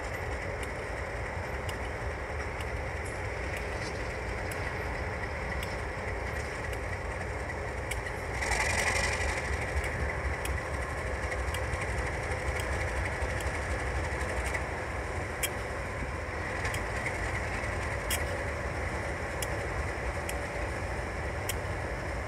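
Diesel-electric switching locomotive moving slowly, its engine giving a steady low rumble with a faint steady whine and scattered clicks. About a third of the way in, a louder rush of noise rises over it for a second or two.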